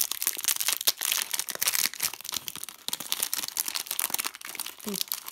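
Plastic sweet packet crinkling and tearing as hands pull it open, a dense, irregular run of crackles.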